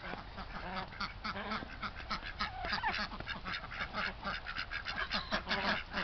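A flock of domestic ducks quacking, with many short calls in quick succession.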